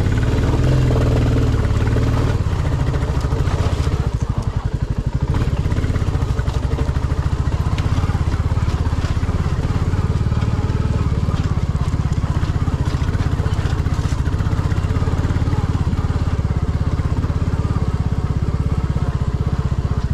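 Royal Enfield Classic 350's single-cylinder engine running steadily as the motorcycle is ridden over a stony track, with scattered clicks and knocks from the rocks and the bike.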